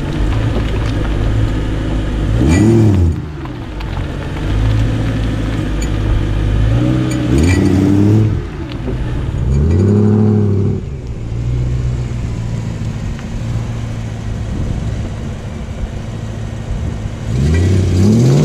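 BMW M3 running under way, its engine note rising and falling in pitch about four times as the revs change, with a few faint sharp ticks. The car has a rattling propshaft.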